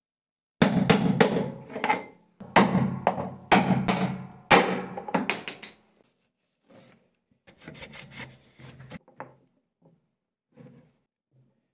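Handling noise from a washing machine's plastic tub and drum-bearing hub: a run of loud scraping knocks and rubbing in the first half, then quieter scattered taps and rubs.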